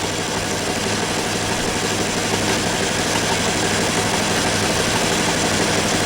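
Metal lathe running under power, with a steady hum from its motor and drive as it takes a cut on a round metal slug.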